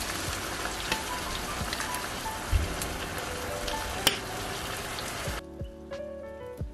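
Ground pork, bamboo shoots and glass noodles sizzling and crackling in a hot frying pan, with a sharp tick about four seconds in. The sizzle cuts off suddenly about five seconds in, leaving soft background music.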